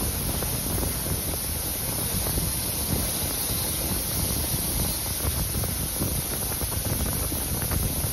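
Steam-hauled train running, heard from an open carriage window: a steady rumble of the train with wind buffeting the microphone.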